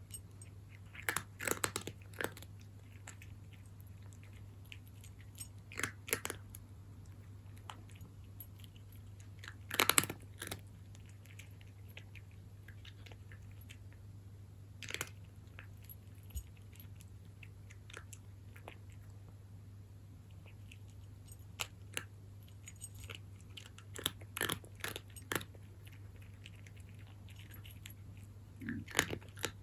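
A cat crunching dry kibble, in short clusters of sharp crunches every few seconds with pauses between, the loudest about ten seconds in. A low steady hum runs underneath.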